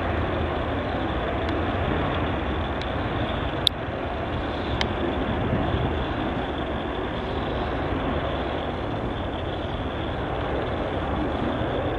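Jet engines of a Jet2 Boeing 737 running as the airliner rolls along the runway: a steady, unbroken roar. A sharp click cuts in about four seconds in.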